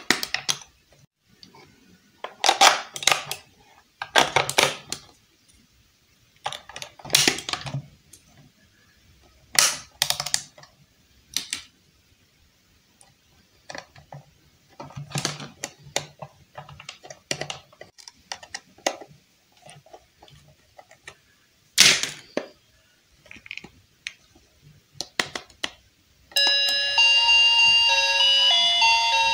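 Small plastic toy microwave handled: scattered clicks, rattles and scrapes of its plastic casing and battery cover being worked with a screwdriver. Near the end the battery-powered toy switches on and plays an electronic beeping melody.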